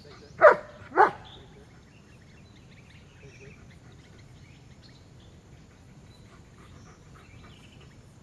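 A dog barking twice in quick succession, about half a second apart.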